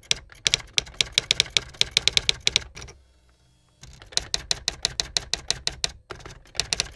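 Rapid typewriter keystrokes, several clacks a second, pausing for most of a second about three seconds in and then going on.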